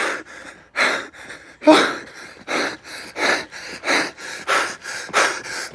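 A person panting hard while running, heavy rapid breaths in and out, about one every two-thirds of a second.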